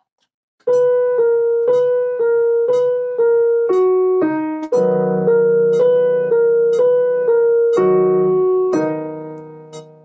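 Piano playing a slow melody of two alternating notes, about two a second, starting about a second in. About halfway, fuller chords over a low bass note join in, and a final chord is held and dies away near the end.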